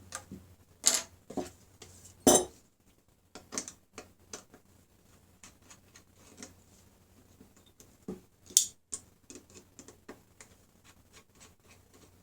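Irregular metal clicks and clinks as the screws and mounting brackets of an old hard drive are worked loose with a screwdriver and set down, with a few sharper knocks near one second, a little over two seconds, and about eight seconds in.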